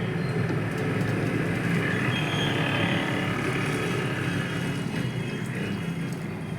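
Water running steadily into a plastic bottle as it is filled.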